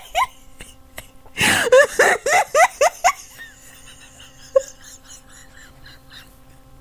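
A person wheezing with laughter: runs of short, high-pitched squeaks, each rising in pitch, about three a second. They come in two runs and trail off into fainter squeaks.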